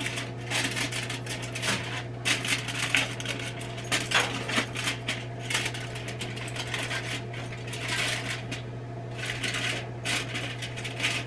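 Aluminium foil crinkling and rustling in irregular bursts as it is folded by hand inside a metal cooker pot. A steady low hum runs underneath.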